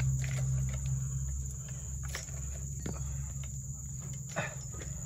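Insects making a steady high-pitched buzz, with a low hum that fades over the first two seconds and a few scattered knocks.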